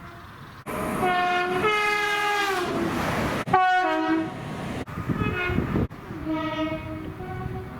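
Train horns on British locomotives and multiple units sounding in short clips cut one after another: a two-tone blast that slides down in pitch at its end as the train passes, a short loud blast that steps down in pitch, then a lower steady single blast. Train running noise lies under each clip.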